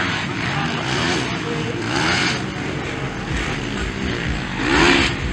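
Motocross motorcycle engines revving up and dropping back as riders race past, the engine note climbing and falling several times, loudest shortly before the end.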